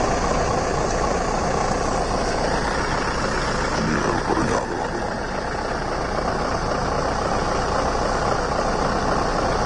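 Scania R580's V8 diesel engine idling steadily.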